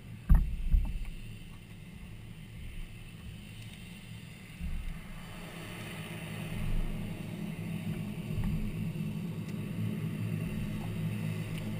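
Small aircraft's piston engine running with its propeller turning: a steady low drone that grows louder from about halfway in. A couple of knocks come right at the start.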